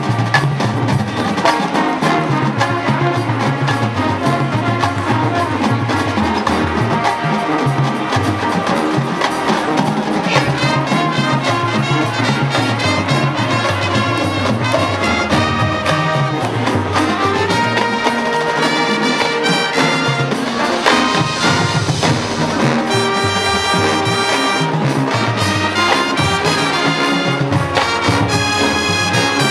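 High school marching band playing its field show, with the brass section to the fore.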